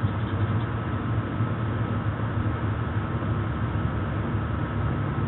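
A steady low hum over a rushing background noise, with no discharge pop or snap: the microwave oven's high-voltage capacitor fails the short-out test, a sign that it is bad.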